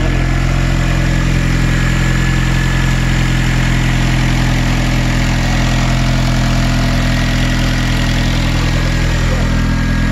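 Hyundai Genesis Coupe's 2.0-litre turbocharged four-cylinder engine idling steadily, running on a freshly installed aftermarket fuel rail.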